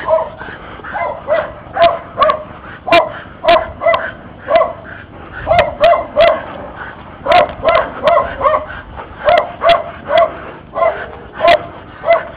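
A dog barking over and over, with sharp, high barks about two a second in short runs with brief pauses between them.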